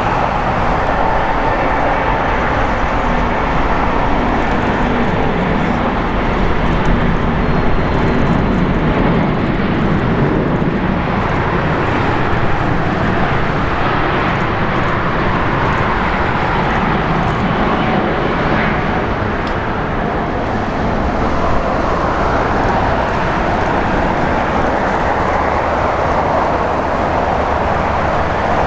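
Airbus A350-900's two Rolls-Royce Trent XWB turbofans at takeoff thrust, a loud steady jet roar as the airliner rolls down the runway and climbs away.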